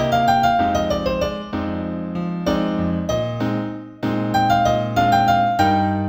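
Solo piano playing a slow new-age piece in E minor: held bass notes and chords under a quicker line of higher notes that falls stepwise in the first second or so. The sound fades briefly just before the middle, and new chords come in.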